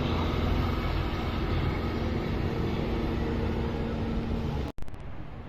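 Steady rumble of nearby road traffic with the low hum of an engine. It cuts off abruptly near the end to a much quieter outdoor background.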